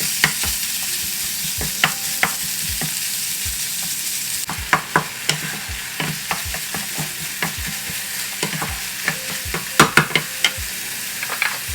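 Minced pork frying in hot oil in a pan, a steady sizzle, while a spatula stirs and breaks up the meat, knocking and scraping against the pan, with quick runs of sharper knocks about halfway through and near the end.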